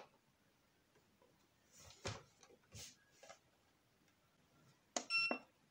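A few light knocks as the O2NAILS M1 Pro nail printer is handled and set down on the table. About five seconds in comes a click and then a short electronic beep from the printer, the signal that it is receiving power.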